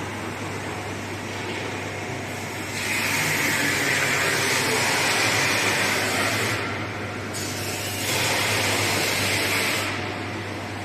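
Air-bubble fruit and vegetable washing machine running: a steady low motor hum under a rushing noise of water and air bubbles, which grows louder twice for a few seconds at a time.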